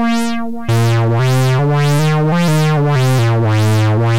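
Modded Moog Werkstatt-01 analog synthesizer playing a held note that gives way, under a second in, to a short line of lower bass notes. Its filter sweeps open and shut about twice a second, so each note pulses brighter and duller.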